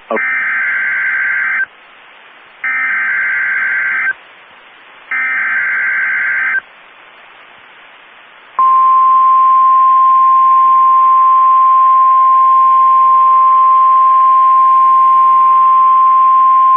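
Emergency Alert System header on NOAA Weather Radio: three bursts of SAME digital data, a harsh warbling screech each about a second and a half long, with radio hiss in the second-long gaps. About eight and a half seconds in, the steady single-pitch Weather Radio warning alarm tone starts, announcing a severe thunderstorm warning.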